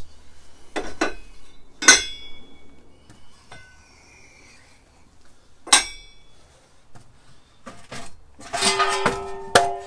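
Metal ingot molds clanking as they are handled and set down: sharp ringing clinks about two seconds in and near six seconds, a few lighter taps between, and a cluster of clanks near the end that leaves a ringing tone hanging.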